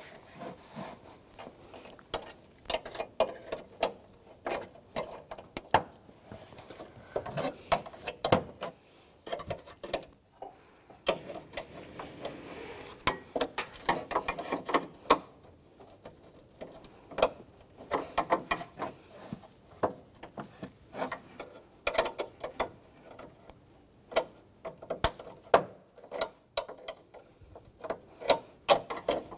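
Irregular clicks, snaps and rattles of plastic as the grille's retaining clips on a Chevrolet Silverado are pried loose and the plastic grille is worked free by hand.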